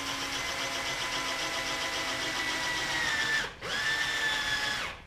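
Cordless drill boring through the rib and its aluminium upright tube. The steady motor whine sags slightly in pitch under load, stops about three and a half seconds in, then runs again for about a second.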